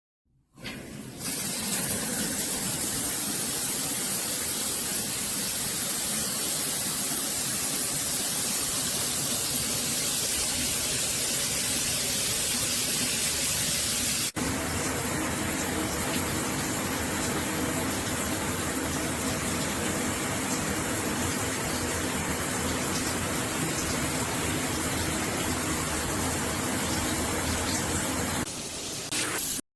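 Water spraying steadily from a GURIN 6-inch rain shower head, a dense hiss. About halfway through it changes abruptly to a slightly quieter spray.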